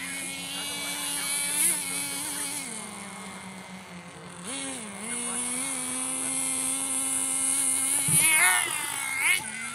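Small nitro engine of a Team Associated SC10GT short-course RC truck running at a steady high pitch, dropping off and picking up again a few times as the throttle changes. Near the end it revs up sharply and falls back. The engine is freshly broken in.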